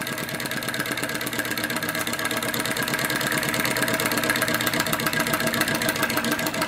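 Scratch-built flame licker (vacuum) engine running fast with a rapid, even beat, getting gradually louder as its burner is moved toward the best flame position.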